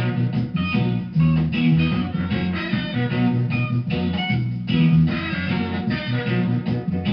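Background music led by guitar with a bass line and a steady beat.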